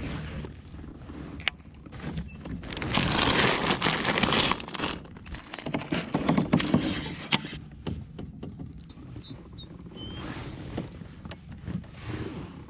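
Fishing gear being handled in a plastic kayak: scattered clicks, knocks and scraping. A louder rushing, rustling noise runs for a second or two a few seconds in.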